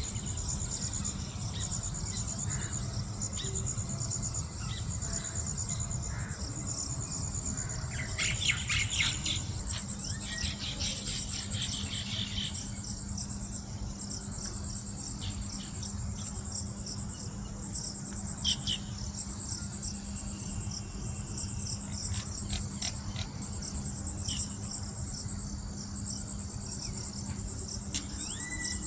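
Crickets trilling steadily in a high, finely pulsing drone. A quick run of bird chirps, the loudest sound, comes about eight to twelve seconds in, and single chirps follow later. A low rumble and a steady low hum sit underneath.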